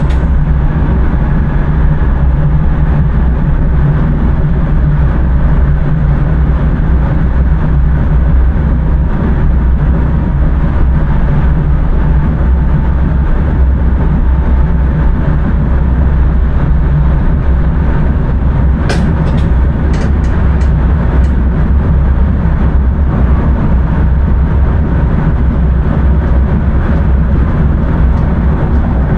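Intercity train under way, heard inside the driver's cab: a steady, loud low rumble of running gear and traction, with a few short clicks about two-thirds of the way through.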